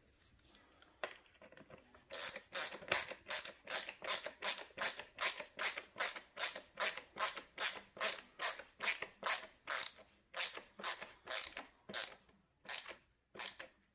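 Hand screwdriver driving a screw into a carpet washer's housing: after about two seconds of handling, a steady run of rasping turning strokes, about two or three a second, pausing briefly a couple of times near the end.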